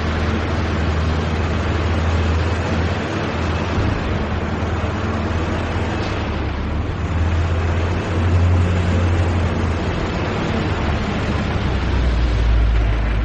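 Factory machinery running: a steady, dense mechanical din over a strong low hum, the hum dropping lower near the end.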